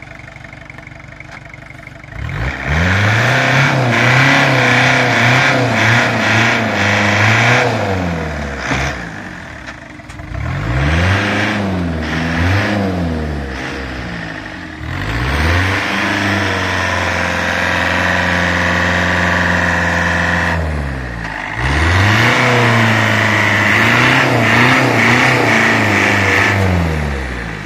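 Fiat 1.9 TD four-cylinder turbodiesel of a homemade 4x4 tractor, worked hard through deep mud. It idles briefly, then revs up about two seconds in and runs high in four long spells, the pitch rising and falling as the throttle and load change, and drops back lower between spells and near the end.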